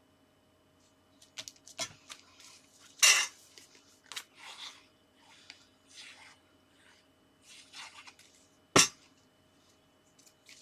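Card and paper being handled on a craft table: short rustles and slides of card, with scattered sharp taps and knocks, the loudest about three seconds in and another near the end.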